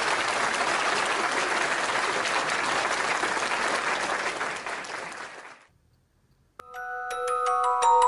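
A crowd applauding steadily, fading out about five and a half seconds in. After a short silence, a tune of bright, chiming pitched notes begins.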